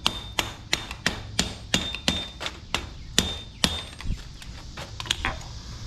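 Hand hammer striking hot steel on an anvil while forging a railroad spike axe head, a steady run of about three blows a second, many with a short metallic ring.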